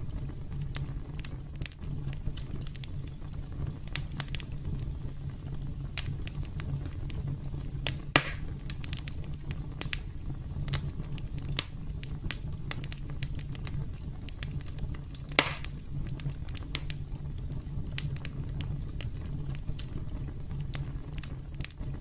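Wood campfire crackling, with many small irregular snaps over a steady low rumble and two sharper pops, one about a third of the way through and one about two-thirds in.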